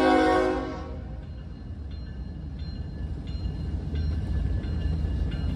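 A Norfolk Southern diesel locomotive's multi-tone air horn sounds, then fades out about a second in, leaving the low rumble of the approaching locomotive with a few faint clicks, slowly growing louder. The horn starts again right at the end.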